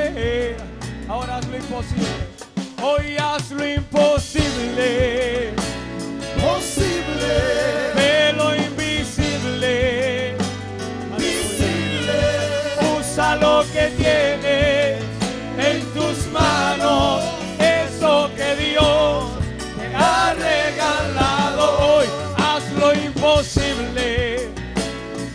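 Live Christian praise music: a man singing with vibrato into a microphone over a band's steady accompaniment.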